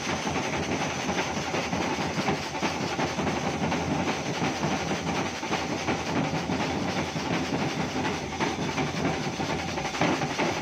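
A troupe of large barrel drums beaten with sticks, playing a fast, dense, continuous rhythm.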